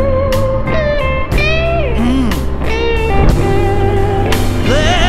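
Blues-rock background music: an electric guitar plays bending, sliding notes over a steady bass and drum beat.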